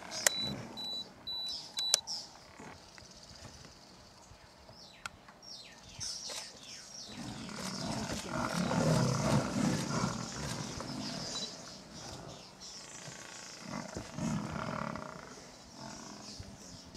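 Lion growling and snarling as it attacks a Cape buffalo, loudest for a few seconds in the middle, with a shorter growl near the end. A few sharp clicks are heard near the start.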